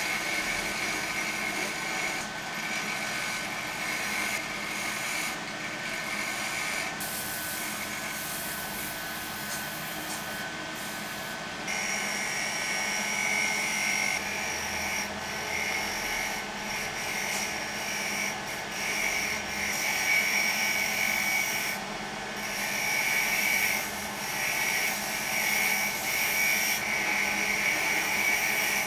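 Small wood lathe running with a steady motor whine while a hand turning chisel scrapes and cuts the spinning wooden disc, a rasping hiss that comes and goes with the cuts. The cutting stops for a few seconds about a quarter of the way in, leaving the motor alone, then resumes.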